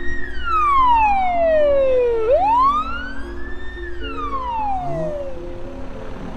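Ambulance siren wailing in slow sweeps: falling, rising once and falling again, then stopping about five seconds in. Background music with a stepped melody runs underneath.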